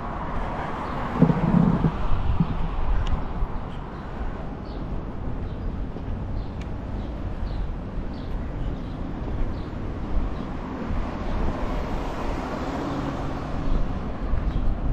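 Street ambience on a windy walk: wind rumbling on a GoPro's microphone, with traffic noise swelling about a second in, and faint regular footsteps.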